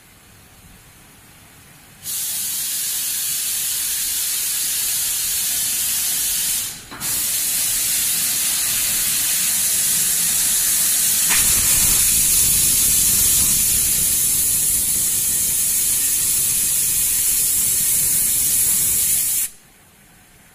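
Gas-oxygen torch flame on a glass bottle mouth threading machine hissing steadily as it heats the glass tube. The hiss starts suddenly about two seconds in, breaks off for a moment near seven seconds, and cuts off suddenly near the end.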